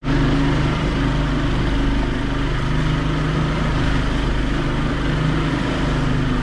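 Fishing boat's engine running steadily at trolling speed, under a steady rush of wind and water.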